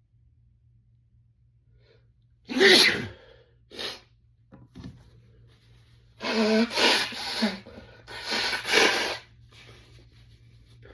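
A man sneezing repeatedly, set off by sniffing chhinkni (a sneeze-inducing herb). There is one loud sneeze about two and a half seconds in, then a short one, then a run of several sneezes in quick succession between about six and nine seconds.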